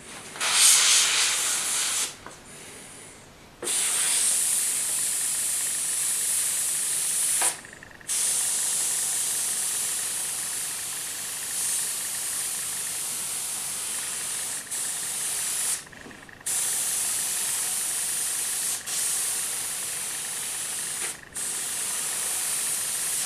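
Badger Renegade Velocity airbrush hissing as it sprays black paint, in about five long passes with short breaks between them.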